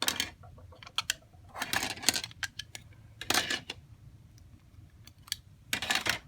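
Clamps being taken off a phone's newly glued screen and put down: a series of sharp clicks and short clattering rattles, about half a dozen, the loudest around two seconds in, three and a half seconds in and near the end.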